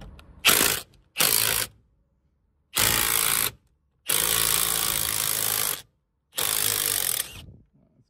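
Ridgid cordless impact wrench hammering in five short bursts, the longest about a second and a half, breaking loose a Loctite-coated steering-wheel retaining bolt through a 10 mm hex bit on extensions.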